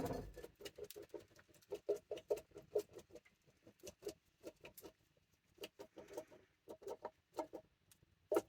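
A can of drained corn, opened only partway, shaken and tapped to get the kernels out: a quick, uneven run of small knocks and rattles, pausing for about a second midway.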